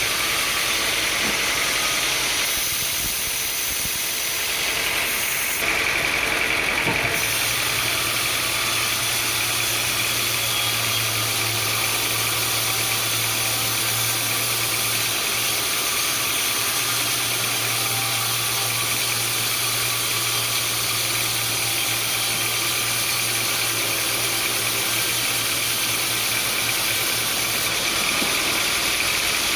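Sawmill machinery running steadily, with a low hum that sets in about seven seconds in and drops away near the end.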